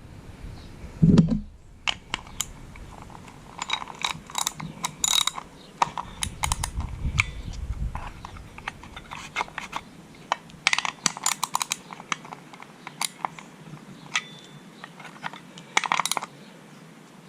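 Irregular clicks and clinks of small metal parts as a pull-start recoil starter is handled and fitted back together, with a low thump about a second in.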